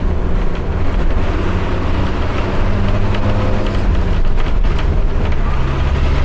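Cabin noise of an old Indian-built public bus under way: a steady low engine drone, with rattles and knocks from the body and fittings.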